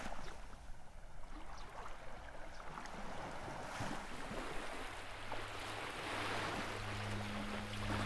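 Sea water washing and splashing, swelling in surges every two or three seconds. A low steady hum comes in about five seconds in.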